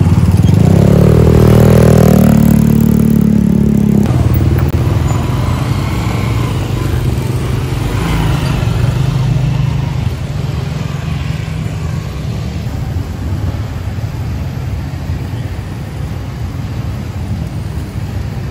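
Motorcycle tricycle engine running close by, loudest about two seconds in and dropping off after about four seconds, followed by a steady hum of street traffic.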